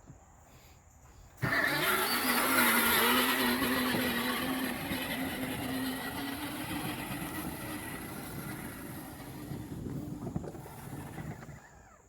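Electric drive motors and gearboxes of a kid's battery-powered ride-on car kick in suddenly about a second and a half in. They whine steadily as the car drives off, slowly getting quieter, and stop near the end. The newly replaced foot pedal switch is now working.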